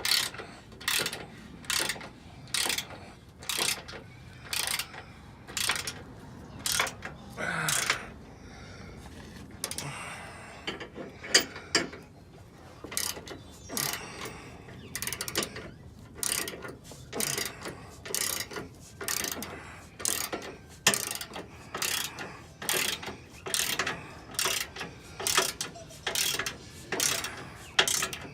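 Hand socket ratchet being worked back and forth, its pawl clicking about twice a second as it drives the skid plate's mounting bolts, with a pause of a few seconds about eight seconds in.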